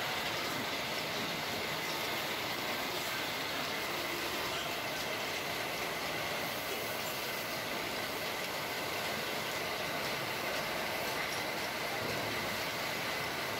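Metal-spinning lathe running while a hand tool presses on the spinning aluminium pot to bend its rim over: a steady grinding noise with a faint high whine.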